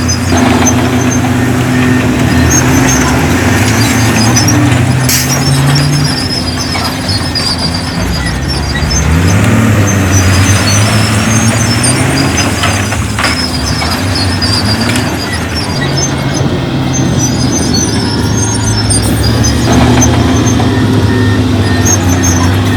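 Diesel engine of heavy earthmoving machinery running under changing load, its engine speed rising about nine seconds in, with a few sharp metallic clanks.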